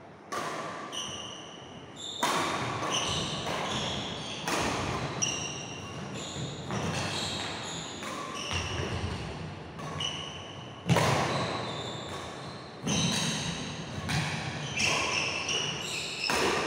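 Badminton rackets striking a shuttlecock back and forth in a rally: a sharp hit about every two seconds, each ringing on in the echo of a large hall.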